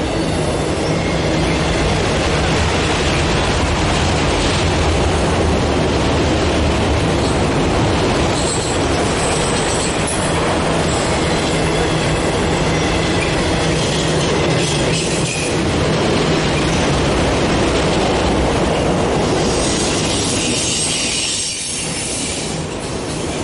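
A long freight train of enclosed autorack cars rolling past at track side: steady noise of steel wheels on the rails and the cars rattling.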